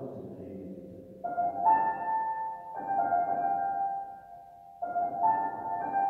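Grand piano played slowly: notes and chords struck a few at a time, each left ringing and dying away, with a short lull before a new group of notes near the end.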